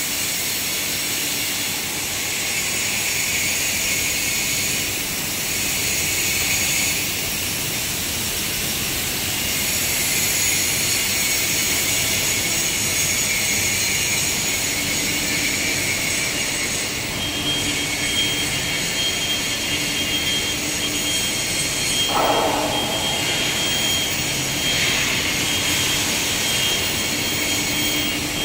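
Steady hiss and hum of factory-floor background noise in a large workshop hall. A faint high whistle and a low hum join in about halfway through.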